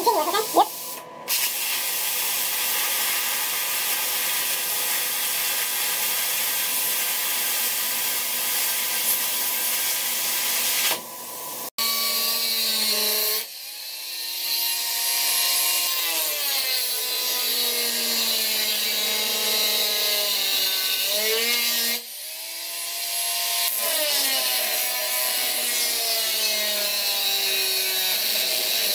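An angle grinder with a cut-off wheel cuts a steel plate. Its whine slides down in pitch as the wheel bites and climbs back as the load eases, several times over. For roughly the first eleven seconds there is instead a steady hiss.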